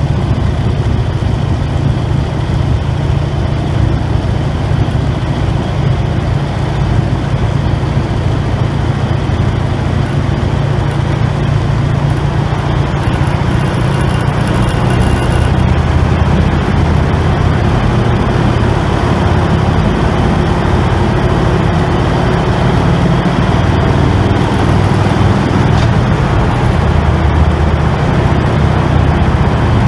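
Harley-Davidson Road King's V-twin engine running steadily on the move, with a haze of road and wind noise. It gets slightly louder about halfway through.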